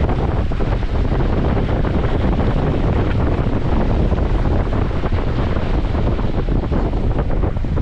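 Wind buffeting the microphone: a loud, steady rumble with no break.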